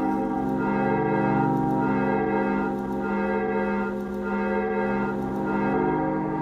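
Background music: sustained, organ-like ambient chords with bell-like upper tones swelling roughly once a second.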